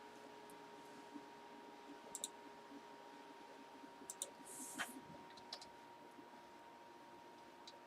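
Faint, scattered clicks and a brief soft rustle about halfway through, over quiet room tone with a faint steady hum.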